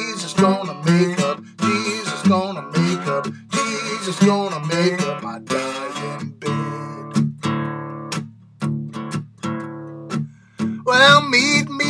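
Acoustic guitar played bottleneck-style with a slide in a delta blues instrumental break: strummed chords with gliding, wavering slide notes. About halfway through it thins to single notes that ring out and fade, then the strumming comes back louder near the end.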